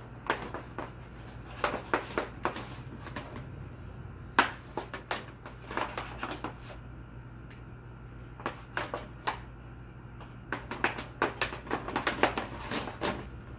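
Chalk tapping and scratching against a toy easel's chalkboard, in bunches of quick strokes with short pauses between.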